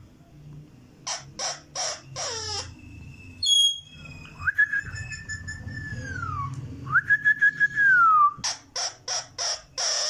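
Male Indian ringneck parakeet calling: a run of short harsh squawks, then two long level whistles that each slide down at the end, then five more quick squawks near the end.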